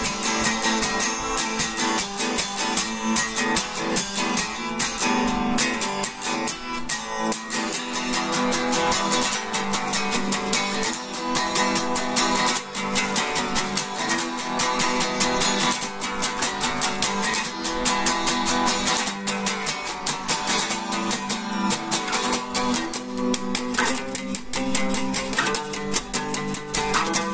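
Guitar strummed fast and evenly, with the chords changing every few seconds.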